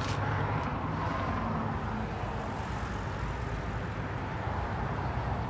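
Steady outdoor rumble and hiss with no distinct events.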